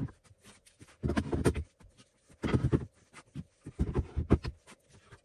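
Metal hand planes and wooden wall holders being handled: three short clusters of knocks and scraping about a second apart.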